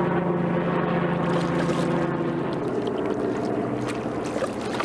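A steady motor hum made of several tones, dropping lower about halfway through.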